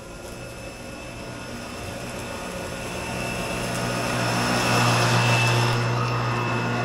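Toro 60V battery-powered eTimeMaster 30-inch walk-behind mower running and cutting grass: a steady electric hum with a whirring rush. It grows louder as the mower comes up to and passes close by about five seconds in, then eases off slightly.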